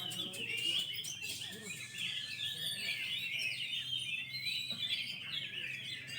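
Several oriental magpie-robins (kacer) singing at once in a bird-song contest, a dense unbroken chatter of whistles, trills and chirps that overlap with no pauses.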